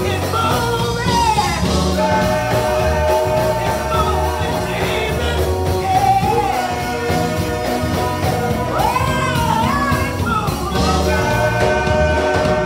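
A church praise team of several singers singing a gospel song into microphones, with sung melody lines gliding over a steady bass line.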